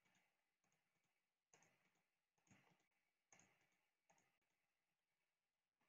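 Near silence: room tone, with a few very faint computer mouse clicks spaced about a second apart.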